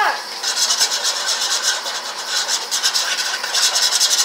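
Metal fork scraping rapidly against the bottom of a metal pan while stirring jello powder into hot water, a quick rasping in bursts with short pauses between them.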